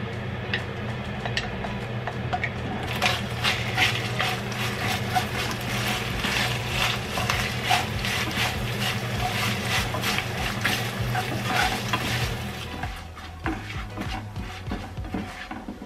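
A spatula stirs and scrapes crisp-fried dried whitebait strips through thick gochujang sauce in a pan. A rapid run of scraping strokes starts about three seconds in and thins out a few seconds before the end.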